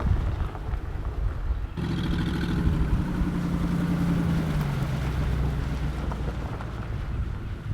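Low rumble with wind on the microphone, then about two seconds in an abrupt switch to a Land Rover Discovery 2's engine running, its note steady at first and then dropping.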